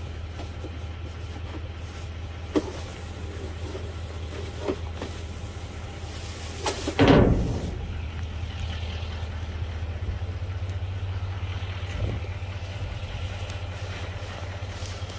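A steady low mechanical hum, like an engine idling, with a few light knocks and one loud thump about seven seconds in.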